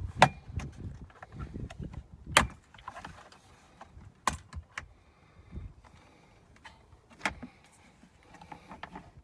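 Hard plastic clicks and knocks from a pickup's plastic console trim plate and its clips being handled after being pried loose: four sharp clicks, with handling rustle in the first couple of seconds and small ticks in between.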